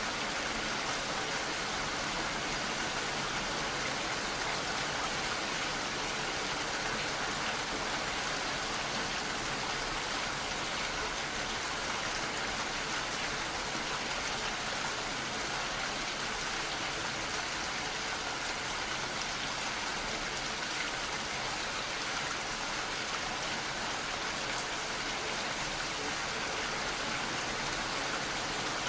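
Steady rain falling, an even, unbroken hiss with no distinct drips, thunder or changes in intensity.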